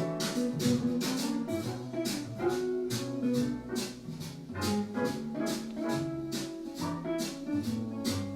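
Instrumental music with a steady beat of about two strikes a second under held pitched notes, played back through a Bose Smart Soundbar 900.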